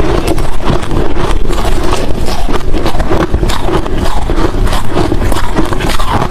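Hard crushed ice and shaved-ice chunks being chewed close to the microphone: loud, rapid, irregular crunching with no pause.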